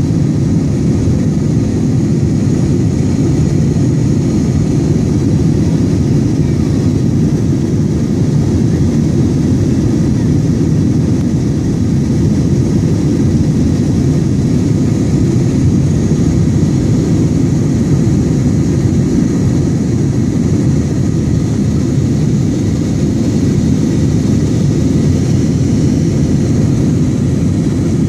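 Airliner cabin noise during the climb after takeoff: a steady low rumble of engines and rushing air with a fainter hiss above it.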